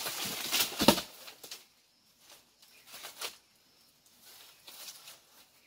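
A mango tree's leafy branches rustle as a thrown object strikes the canopy, with two thuds in the first second as mangoes drop. The rest is faint scattered rustling in the grass as the fruit is picked up.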